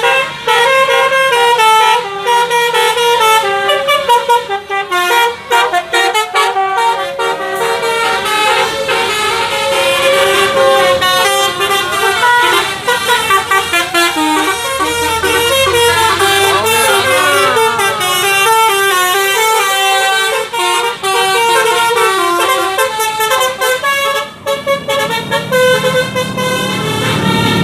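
Telolet basuri multi-tone bus horns playing melodies, several horns overlapping with notes stepping quickly up and down, as a convoy of buses passes. Near the end the horn tunes fade and a bus engine rises in their place.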